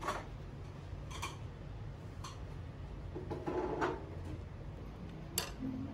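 Room tone with a steady low hum, broken by five or so light clicks and clinks of tableware spread through, the loudest ones in the second half.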